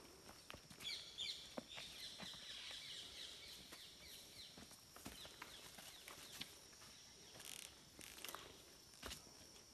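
Faint footsteps and crackling twigs and leaves as people clamber over tree roots on dry forest ground. A bird chatters for a few seconds early on, in quick repeated high notes, over a faint steady high insect hum.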